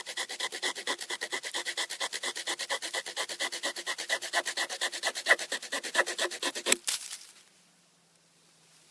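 Saw blade of a Victorinox Farmer Swiss Army knife cutting a thin piece of very dry, hard wood in quick, even back-and-forth strokes, several a second. The sawing stops about seven seconds in.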